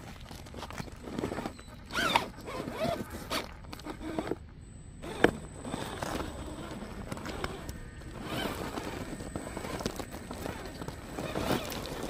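Electric RC rock crawler climbing loose rocks beside a boulder: tires and chassis crunching and knocking on stone, with a sharp knock about five seconds in and a faint high whine from the electric drive.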